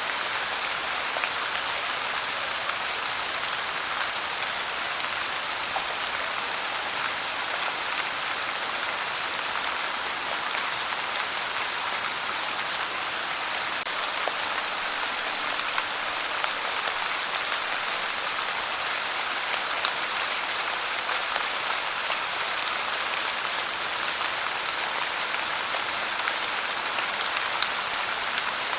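Steady rain falling: an even hiss with scattered drop ticks, no thunder.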